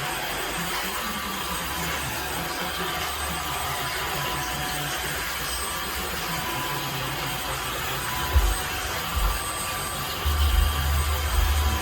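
Tineco Floor ONE S5 cordless wet-dry vacuum running with a steady whooshing motor noise. There are low thumps about eight seconds in and again near the end.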